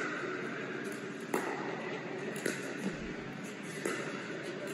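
Pickleball paddles hitting a plastic pickleball during a rally at the net: three sharp pops roughly a second apart, ringing briefly in a large indoor hall.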